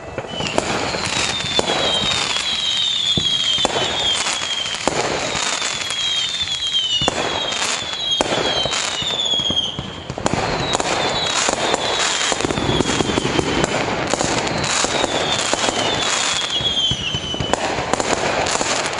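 A dense fireworks display with nonstop bangs and crackling. Many short high whistles fall in pitch over the top, clustered in the first half and again near the end. The barrage eases briefly about ten seconds in.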